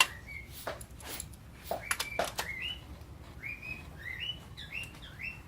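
Bicycle tire pump worked rapidly by hand. Each stroke gives a short rising squeak and a puff of air, about a dozen in quick runs.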